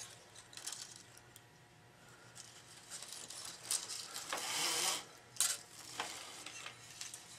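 Racket string being pulled through the frame's grommets on a stringing machine: short hissing slides of string, the longest about four seconds in, with a few sharp clicks of handling.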